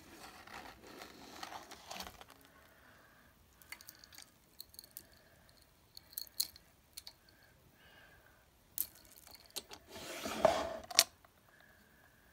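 Metal chain and bead necklaces jangling and clinking as they are handled on a jewelry stand, with scattered light clicks. Near the end there is a louder rubbing scrape, set off by sharp clicks.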